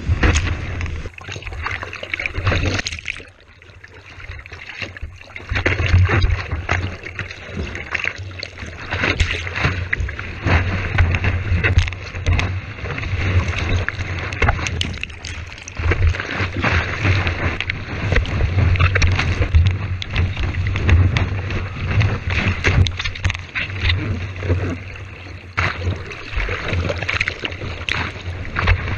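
Rushing whitewater and spray against a surfboard-mounted GoPro's waterproof housing as the board rides, tumbles and is pushed through breaking waves, with wind buffeting the housing. Constant, uneven rush of water with splashes, dropping quieter for a couple of seconds near the start.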